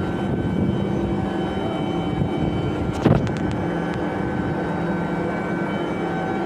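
Steady hum of running machinery, with several constant tones over it and one sharp metallic knock about three seconds in.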